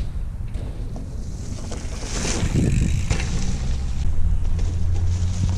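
Mountain bike ridden over a dirt trail: wind rushing over the microphone and a low rumble of tyres, with scattered light clicks and rattles from the bike. The rush of hiss swells about two seconds in.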